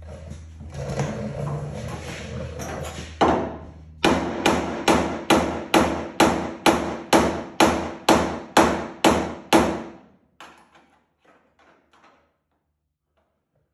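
Hammer blows on the sheet-metal cab of a 1986 Ford F150: handling clatter over a low hum, one hard strike, then a steady run of sharp metallic hits about two and a half a second for some six seconds, ending in a few lighter taps.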